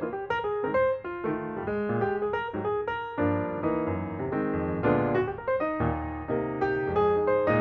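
Background music: a piano playing a melody of quick, steady notes.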